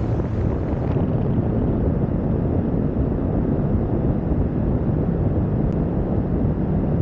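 Steady wind rumble on the microphones of a 360 camera mounted on the roof of a moving car, mixed with the car's road noise.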